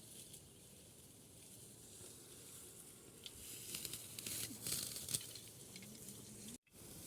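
Faint rustling and crackling of dry barley stalks being cut and handled by hand, with a cluster of sharper crackles a few seconds in.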